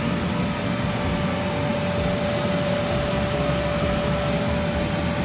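Electric blower running steadily, keeping the commercial inflatable bounce house inflated: an even rush of air with a steady hum.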